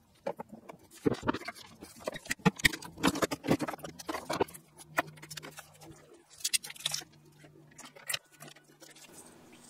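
Irregular clicks, taps and rustles of handling as solar panel cables and their plug connectors are sorted and joined. A faint low hum sets in around halfway and stops shortly before the end.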